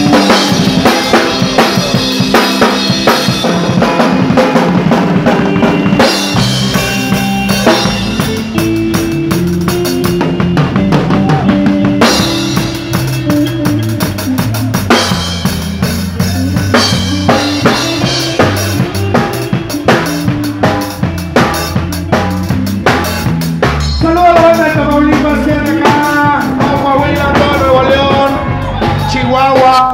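Live band playing, with the drum kit loudest: kick drum, snare and cymbals played close to the microphone over bass and guitar. A wavering melody line comes in over the band in the last few seconds.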